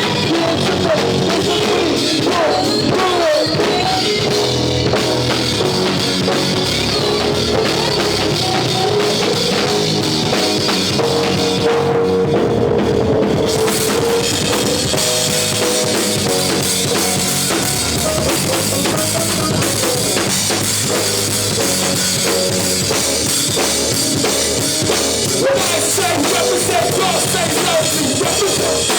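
Live rock band playing an instrumental section, with drum kit and held guitar or keyboard notes. Around twelve seconds in the cymbals drop out for a moment, then come back.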